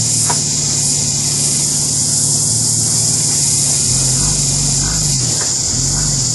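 4WD engine running, a steady low hum that begins rising and falling in revs about four seconds in. Over it, a loud steady high-pitched hiss.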